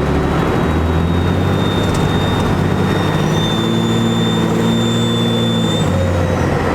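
12-valve Cummins diesel with compound turbochargers pulling under throttle, with a steady high turbo whistle. A second, higher turbo whistle rises as the engine works harder, then falls away when the throttle eases off near the end.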